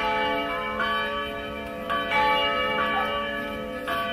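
Church bells ringing, with a fresh stroke about every second over the long, overlapping hum of the earlier strokes.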